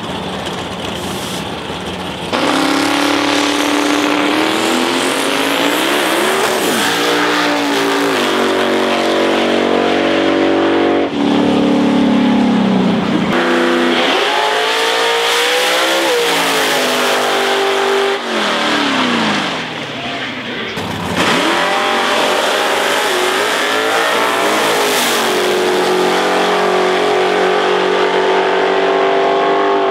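Drag racing cars at full throttle, engines revving in repeated rising and falling sweeps through burnouts and launches off the line. The sound changes abruptly several times.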